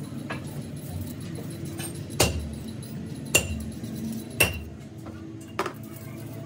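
Sharp metallic clinks, four of them about a second apart, each with a brief ring, as metal parts knock against a tractor's bored engine block, over a steady low workshop hum.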